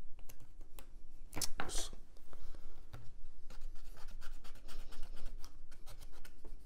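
Kitchen knife scraping and cutting at the plastic film sealing a plastic food tray, with fingers picking at the plastic: irregular small scratches and clicks, a couple of louder strokes about a second and a half in.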